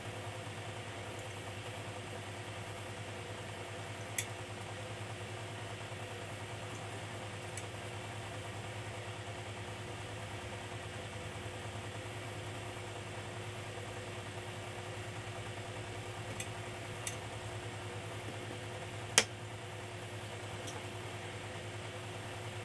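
Steady low machine hum in a small workshop room, crossed by a few light clicks, with one sharper click about three-quarters of the way through.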